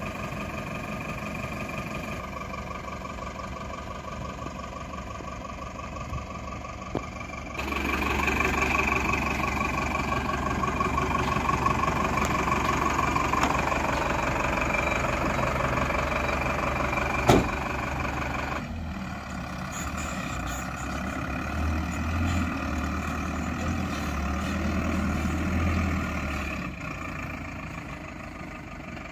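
Diesel engines of a backhoe loader and a tipper truck idling and running, the sound changing abruptly several times, with a single sharp knock a little past halfway.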